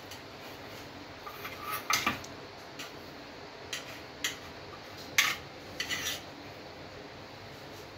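A metal spoon clinking and scraping against aluminium idli-stand plates as steamed idlis are scooped out of the cups: scattered short clinks, the loudest a little past five seconds in.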